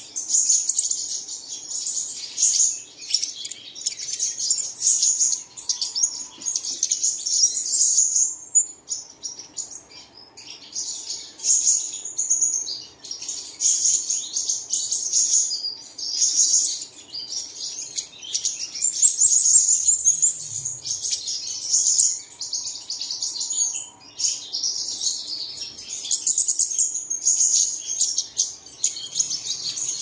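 Sunbird singing a fast, high-pitched twittering song that runs almost without a break, with a few short pauses.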